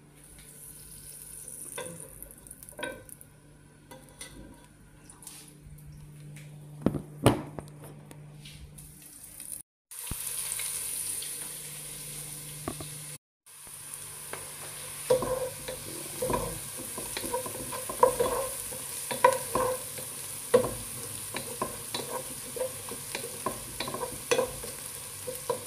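Chopped onion and garlic frying in a little oil in a nonstick pot, sizzling, with a wooden spatula stirring and tapping against the pan through the second half. Before that, a low steady hum with scattered clicks, and the sound cuts out briefly twice.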